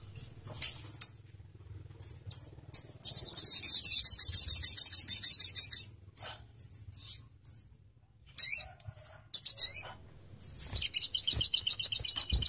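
Sogok ontong (sogon) sunbird song: a fast, high trill of rapidly repeated notes lasting about three seconds, then scattered sharp chips and a couple of quick downslurred notes, then the fast trill starting again near the end.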